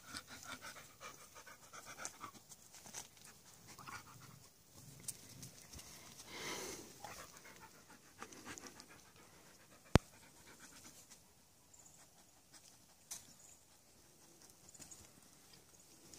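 Rottweiler panting, with faint scuffling of puppies wrestling on dirt. One sharp click about ten seconds in.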